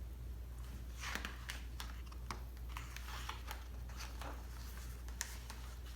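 Pages of a picture book being handled and turned: faint scattered paper rustles and light clicks over a steady low hum.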